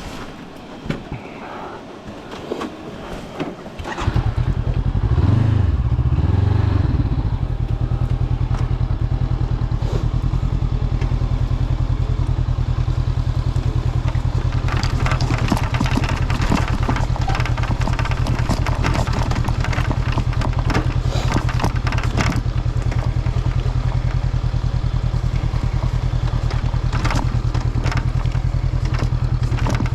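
Honda CB500X parallel-twin motorcycle riding, its engine and a heavy low rumble of wind rising sharply about four seconds in as it pulls away with rising revs. A clattering rattle runs over it, densest around the middle: the windshield rattling because it has lost a screw.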